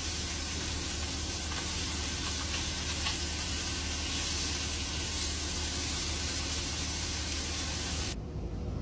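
Chicken frying in a pan, a steady sizzle with a couple of faint pops. The hissing drops away suddenly near the end.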